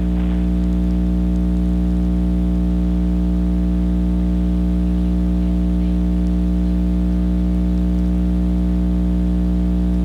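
Steady electrical buzz on the emergency alert broadcast audio: a stack of low, unchanging tones over a faint hiss.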